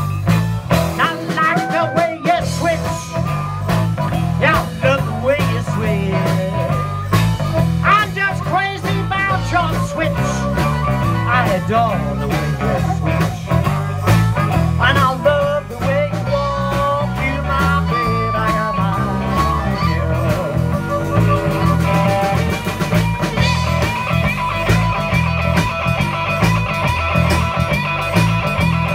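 Live electric blues band playing an instrumental break: a harmonica solo with bending, wailing notes over electric guitars and drums in a steady shuffle, the harmonica dropping out near the end.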